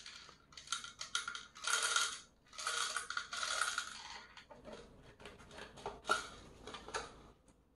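Dry dog kibble clattering and rattling in clear plastic bottles as they are filled and handled, heard as a string of sharp clicks and several short rattling bursts.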